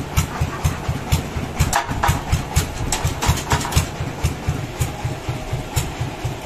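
Sawmill engine running with a steady low thumping of about five beats a second, with a scatter of sharp knocks and clatter, thickest in the middle.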